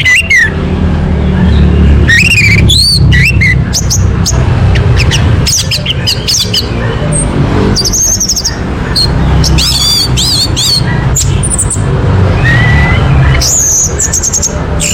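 Orange-headed thrush singing: a fast, continuous run of varied whistled phrases that rise and fall, over a steady low rumble.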